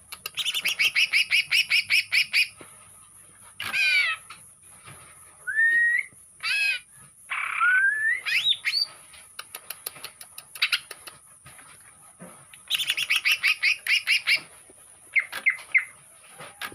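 A songbird singing in phrases: two fast trills of about ten repeated notes a second, separated by rising and falling whistled notes and short chips.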